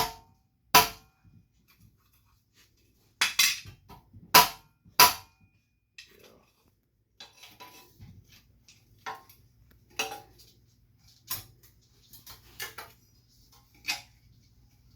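Loose metal tools and hardware clinking and clattering as they are handled: a run of sharp knocks, loudest in the first five seconds, then lighter clinks about once a second.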